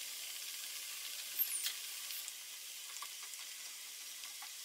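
Flower mathri dough deep-frying in hot oil on a low flame: a steady sizzling hiss with scattered crackles and a louder pop about one and a half seconds in. A few light clicks come near the end as a wire skimmer moves the pieces in the pan.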